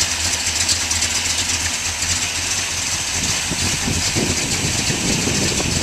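1961 Ford Starliner's engine idling steadily, with an even low pulsing exhaust note.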